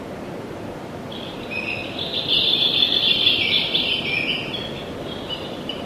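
Recorded birdsong, a run of chirps and tweets, played by the electronic dragon-rock unit of the Ravensburger 'Wo war's?' board game. It starts about a second in and fades near the end. It is a sound clue meaning the thief is at the tree beside where the children play.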